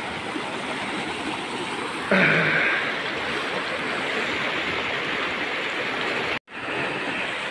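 Rocky mountain river rushing over stones, a steady wash of flowing water. It swells louder for under a second about two seconds in, and cuts out for an instant about six and a half seconds in.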